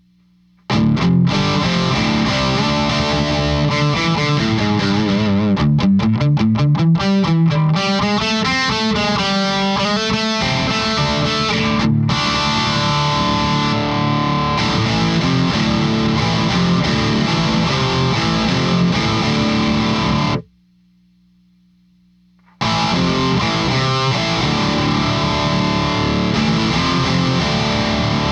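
Heavily distorted electric guitar, a PRS SE played through a Victory Super Kraken amp with a Fortin overdrive pedal in front, playing riffs and chords. It breaks off for about two seconds near the twenty-second mark, then starts again.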